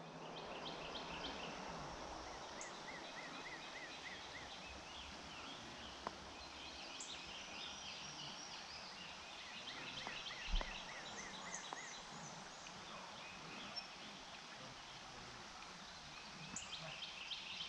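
Songbirds calling and trilling in woodland over a faint, steady background hiss, with one soft low thump just past the middle.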